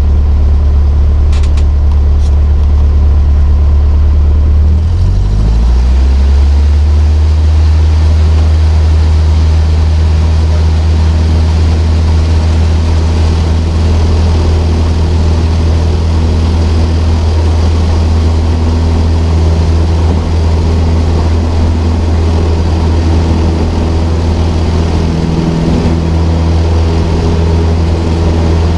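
Cessna 152's four-cylinder Lycoming engine and propeller, heard from inside the cockpit. It rises in pitch about five seconds in as power comes up for takeoff, then runs steadily through the takeoff roll.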